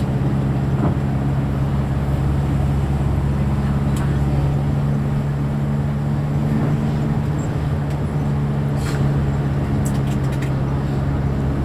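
Motor vehicle on the move: a steady low engine drone with road noise.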